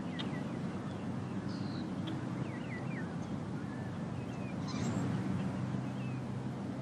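Quiet outdoor ambience: a steady low background hum, with scattered short bird chirps and calls over it.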